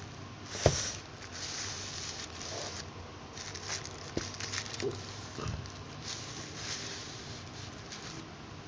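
Handling noise of a paper takoyaki box: a sharp knock about 0.7 s in, then light rustling of paper and a few small taps and clicks.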